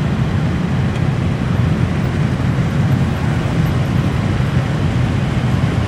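Many motorcycle engines running together at low speed in a packed, slow-moving queue, a steady low rumble of traffic.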